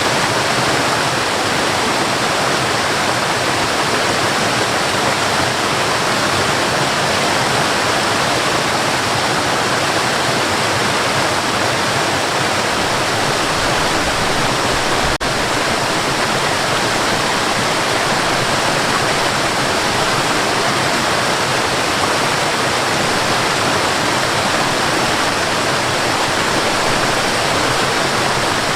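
Forest waterfall: water pouring and splashing in a steady, dense rush, with a momentary dip about halfway through.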